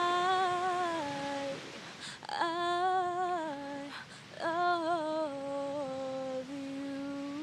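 A woman humming a wordless melody: three short phrases, each wavering and falling at its end, then one long, steady held note near the end.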